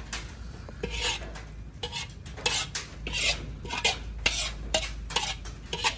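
A slotted metal turner scraping repeatedly against the inside of a metal wok, pushing the chicken out. The scrapes start about a second in and come a few times a second.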